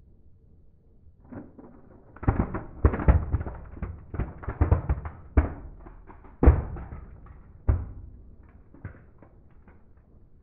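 Small plastic toy cars cracking and crunching under a slowly rolling car tyre: a run of sharp snaps and crackles as the plastic bodies break, with the loudest crack about six and a half seconds in, then a few last snaps tailing off.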